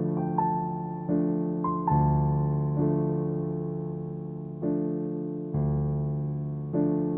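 Background music of slow, soft piano chords, each struck and left to fade before the next one.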